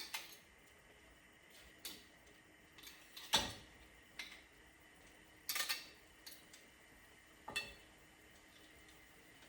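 Scattered clinks and knocks of a cooking utensil against a soup pot and dishes, about six in all, the loudest about three and a half seconds in, as mushrooms are added to the pot.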